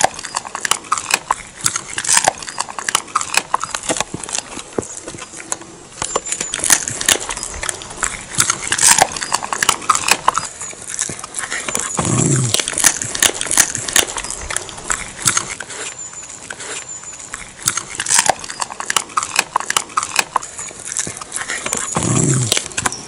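A dog crunching whole chicken bones, a fast run of crisp cracking chews like someone eating shrimp crackers. Two brief low sounds come through, about halfway and near the end.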